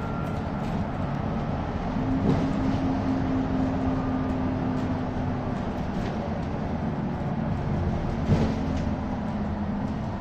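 Interior noise of a moving double-decker bus heard from the upper deck: a steady engine hum over road rumble, with a couple of sharp rattles or knocks, about two seconds in and again about eight seconds in.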